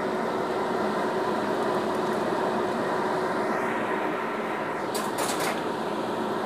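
Steady rushing noise of a pot of soup boiling on a gas stove, with a faint constant hum, and a few short clicks about five seconds in as shrimp are added.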